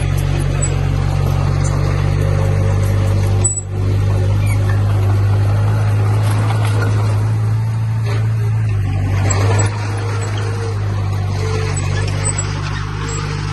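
Heavy diesel machinery engine running steadily with a low drone, briefly cut off about three and a half seconds in.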